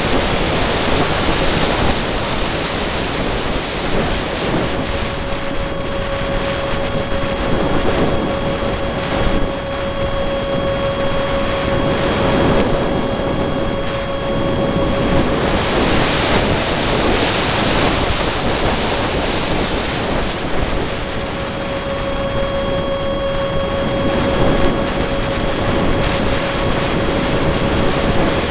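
Strong wind buffeting the microphone with a constant roar and gusts, under the steady whine of the RC A-10's electric ducted fan. The whine grows clear about five seconds in, fades out around the middle, and returns near the end as the jet comes nearer again.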